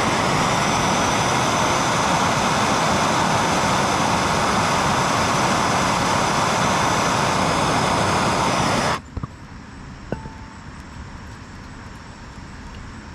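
Handheld gas torch flame running with a steady loud hiss while it heats a steel bracket to melt brazing rod, then shut off suddenly about nine seconds in, followed by a couple of small clicks.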